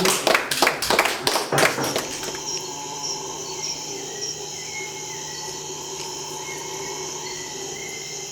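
The last strummed beats of an acoustic guitar song stop about two seconds in. They leave a steady insect chorus of many held tones, with short chirps repeating over it.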